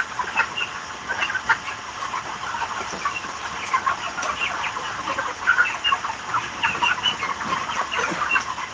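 A flock of chickens clucking and calling, many short overlapping calls in a steady chatter, with a few sharp clicks scattered through it.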